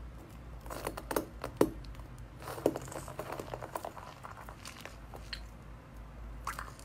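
Clear, runny slime making sticky clicks and small pops as a metal potato masher is pressed down into it and pulled back out. The clicks come in a busy scatter in the first few seconds, then thin out to a few pops near the end.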